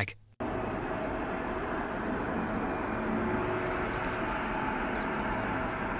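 Jet engines of a large twin-engine airliner on landing approach, a steady jet noise with a faint steady whine, starting abruptly about half a second in.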